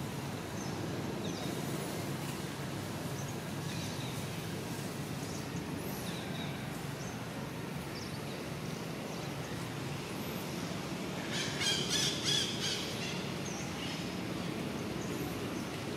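Outdoor forest ambience: scattered short bird chirps over a steady low drone. About twelve seconds in comes a brief run of rapid, high-pitched calls, the loudest sound here.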